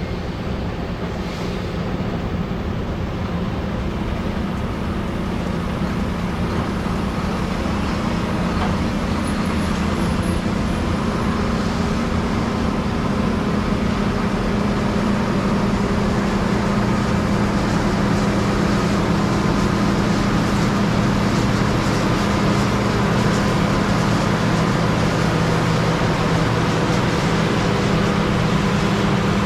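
Heavy diesel farm machinery running steadily through harvest, a deep engine drone that grows slowly louder over the first half and then holds.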